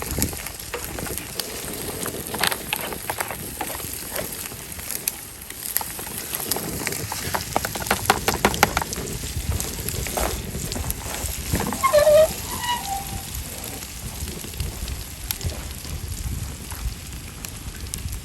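Fire crackling and popping, with irregular sharp snaps over a steady hiss. About twelve seconds in there is a brief pitched call.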